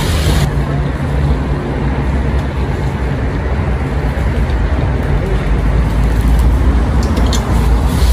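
Green chili peppers and cured pork sizzling steadily in a wok over a small fire stove as they are stir-fried, under a constant low rumble. A few light clicks near the end from chopsticks against the wok.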